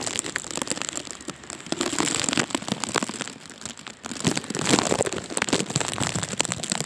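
Heavy rain coming down hard, a dense mass of separate close drop hits. It eases for a moment about halfway through, then picks up again.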